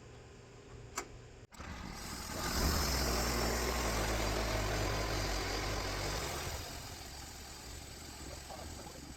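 Portable sawmill's engine coming up to speed about two seconds in, running steadily and loud for several seconds, then easing back down.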